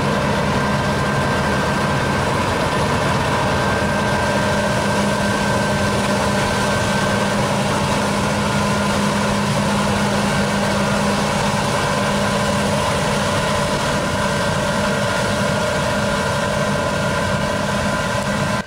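Claas Lexion 750 combine harvester running steadily while harvesting grain: a constant engine and threshing-machinery drone with steady whines on top, the highest of which fades out about halfway through.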